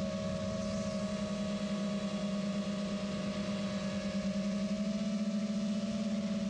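Brushless motors and propellers of an FPV quadcopter whining steadily in cruising flight, picked up by its onboard camera, with a slight rise in pitch about five seconds in.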